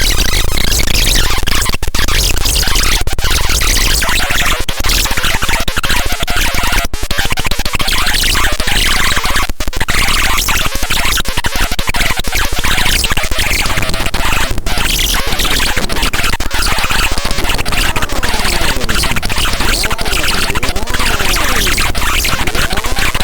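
Circuit-bent electronic toys, a toy dragon and a toy chainsaw, playing together: a continuous harsh, glitchy electronic noise broken by a few brief dropouts, with pitch glides rising and falling near the end.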